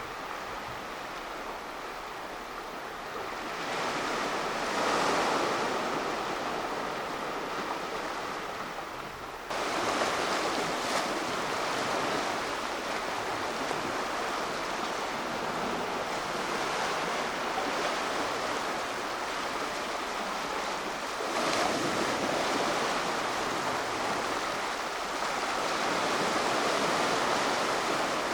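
Black Sea surf washing onto the shore, with waves swelling and breaking about five seconds in and again after about twenty seconds. The wash turns suddenly louder about ten seconds in.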